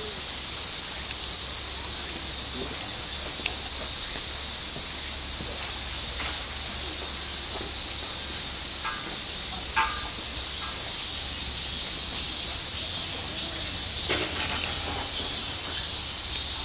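Cicadas calling in a steady high hiss, over a low steady rumble.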